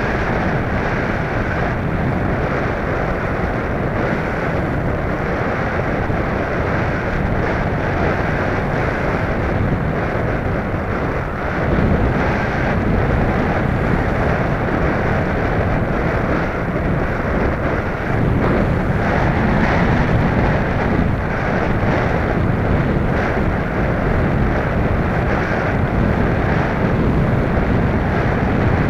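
Air rushing over the onboard camera of a radio-controlled glider in flight: a steady, loud wind noise with no clear tone, dipping briefly about eleven seconds in and a little louder after.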